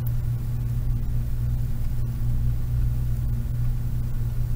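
A steady low hum, with a few faint clicks of a stylus tapping on the touchscreen while writing.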